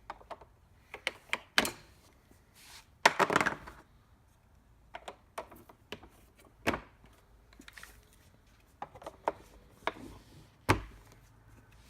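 Plastic lids being handled and pressed onto a plastic utility cart: irregular clicks and light knocks, a short rustle about three seconds in, and one sharp knock near the end.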